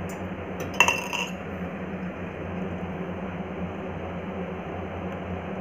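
A metal ladle clinking against a steel pan of sugar syrup as jalebis are put in, the clearest clink ringing briefly about a second in, over a steady low hiss and hum.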